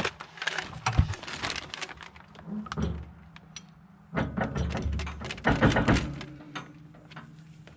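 Metal clicks, knocks and scraping as a PTO shaft's slip-clutch yoke is pushed and worked onto a rototiller's gearbox input shaft.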